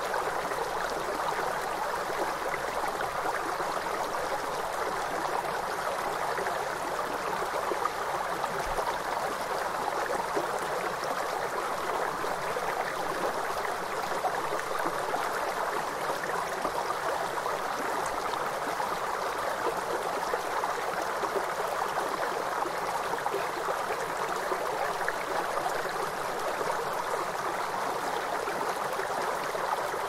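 Stream water rushing and splashing over rocks, a steady, even sound.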